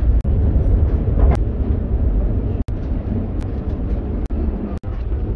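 Trenitalia regional train running, a steady low rumble heard inside the passenger carriage. The sound cuts out for an instant three times.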